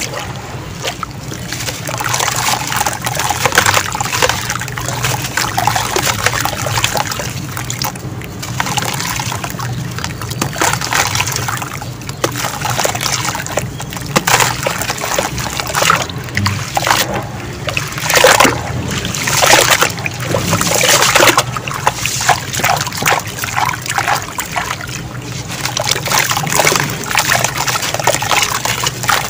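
Hands swishing and squelching through wet sand-and-cement mud in a tub of muddy water: splashing and sloshing, with wet grit crumbling off a squeezed lump and dribbling back into the water. The noise comes in irregular handfuls, loudest in a few bursts about two-thirds of the way through.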